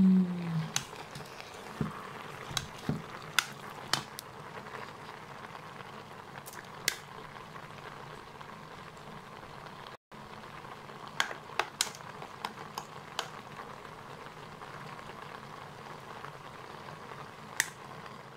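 Stir-fried spaghetti sizzling steadily in a hot pan, with scattered sharp clicks of a utensil against the pan.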